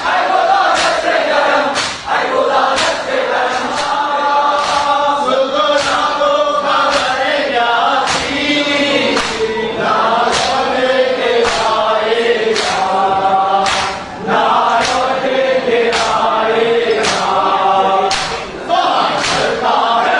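A crowd chanting a Shia mourning lament in unison, with a sharp beat about once a second keeping time.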